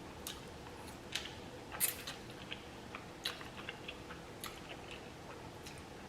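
A person chewing chicken with the mouth making irregular short, sharp wet clicks and smacks.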